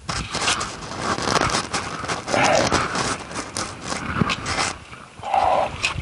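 Hand digging tool scraping and chopping into packed soil and rubble: a busy run of scrapes and sharp knocks that starts suddenly, with a short lower-pitched sound about five seconds in.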